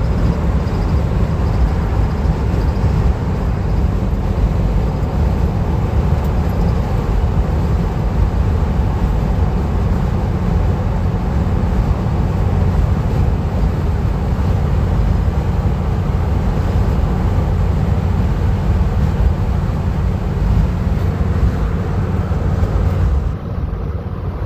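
Steady low rumble of road and engine noise inside a van cruising at highway speed, easing slightly near the end.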